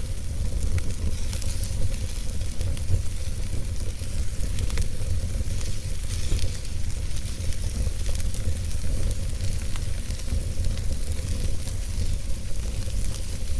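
Wood fire crackling in a fireplace: many small, irregular pops over a steady low rumble.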